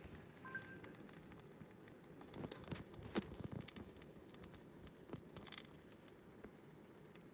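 Faint scattered clicks and light rustling from a clear plastic tub of stones and moss, with a cluster of sharper taps about three seconds in and a couple more about five seconds in.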